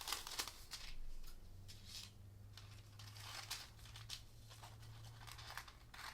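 Gold hot-foil sheet being handled and cut into two pieces, crinkling and rustling in short, irregular strokes.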